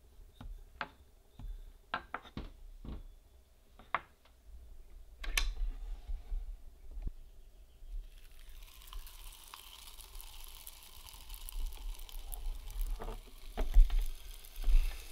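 Scattered taps and soft knocks of a wooden rolling pin and dough on a wooden board, then from about eight seconds in a steady hissing sizzle as oiled scallion pancake dough goes onto a hot waffle iron. A few louder clunks come near the end as the waffle iron's lid is closed.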